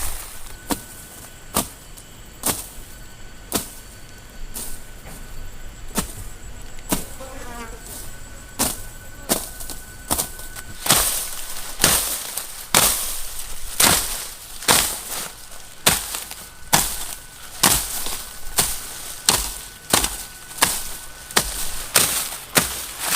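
Repeated sharp knocks or blows, about one a second, fainter at first and louder from about halfway through, with a faint steady high-pitched tone behind them.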